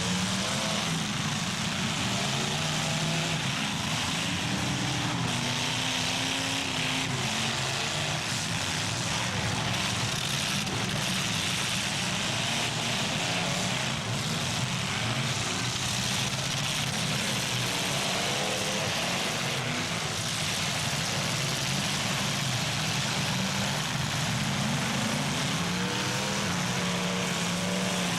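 Several demolition derby cars' engines running and revving together in a continuous loud drone, their pitches rising and falling and overlapping.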